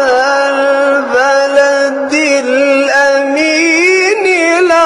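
A single voice singing a slow, ornamented melodic chant, holding long notes, with no instruments or beat.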